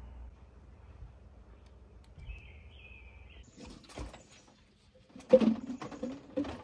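A bird chirps briefly over quiet background. Then water pours and splashes and dishes clatter in a plastic wash basin as a glass is washed by hand, loudest in the second half.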